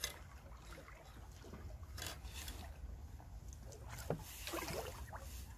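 A hooked fish splashing at the pond surface as it is drawn in on a long fishing pole's line, with a few short splashes about two seconds in and again around four seconds in, over a steady low rumble.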